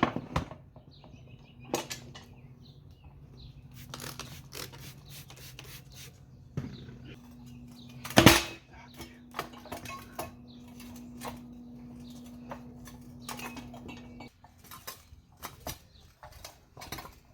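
Irregular metal clanks and knocks from a manual tire changer and its steel bar as an ATV tire's bead is pushed down off the rim, with one loud clank about eight seconds in. A steady low hum runs underneath and stops near the end.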